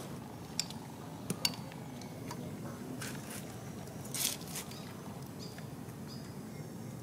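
Scattered short, sharp crunches and clicks of a macaque biting and chewing a piece of corn cob, over a steady outdoor hiss.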